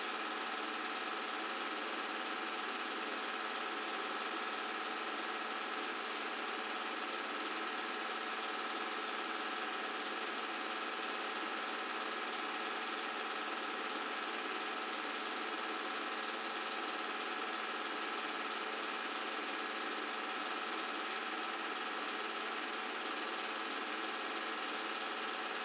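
Film projector running: a steady motor and fan hum with a few steady tones, unchanging throughout.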